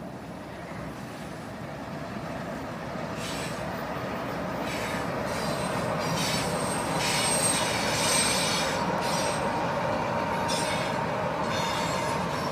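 Diesel-electric freight locomotive and its cars rolling past on the track, growing louder as the locomotive draws level. From about three seconds in, the steel wheels squeal high-pitched against the rails as the cars roll by.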